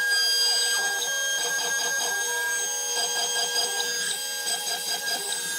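Carve King hobby CNC machine running: the stepper motors give short, repeating tones that shift in pitch as the axes move, over a steady high whine from the spindle.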